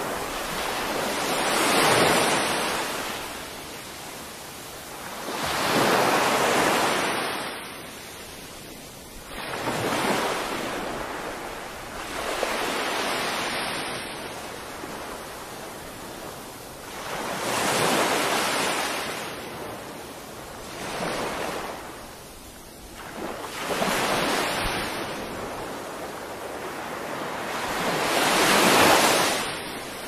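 Small sea waves breaking and washing up a sandy beach, a hissing surge rising and falling about every three to four seconds.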